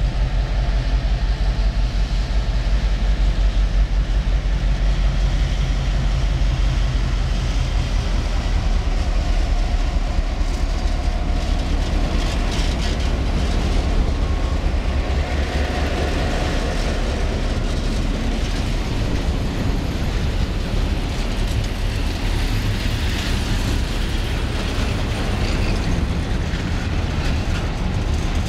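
Serbian Railways class 661 diesel locomotive, EMD 16-567 two-stroke V16, approaching and passing close by with a loud, low engine rumble. About halfway through, its train of tank wagons follows, and the steady rolling noise of wagon wheels on the rails takes over.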